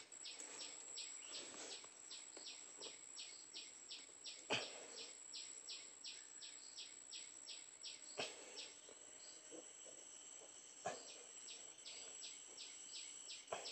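Insects chirping in an even rhythm of about four to five pulses a second over a steady high whine, with a few sharp knocks of a metal digging blade in the soil.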